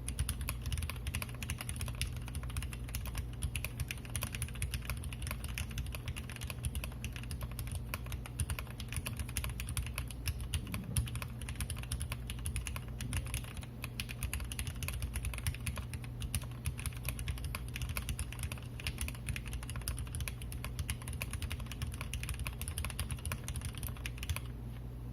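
Continuous typing on a 60% mechanical keyboard with lubed Cherry MX Vintage Black linear switches (62 g gold springs, Tribosys 3204 lube, switch films) in an aluminium plate and Tofu case, with PBT keycaps. The keystrokes stop shortly before the end.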